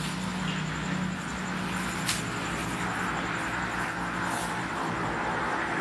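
Steady low engine hum of a motor vehicle running, with a single sharp click about two seconds in.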